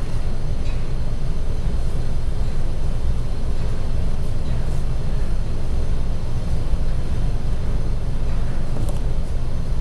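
Steady low rumble of room background noise, with no distinct events.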